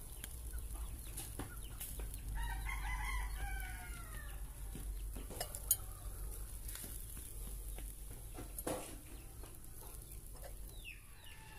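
A rooster crows once about two seconds in, a call of about a second and a half that falls in pitch at its end. A few sharp clicks and knocks follow later.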